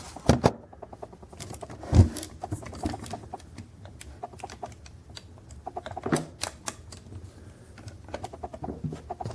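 Irregular clicks and taps from a diecast model drill rig being handled, its metal and plastic parts knocking against fingers and a hard surface.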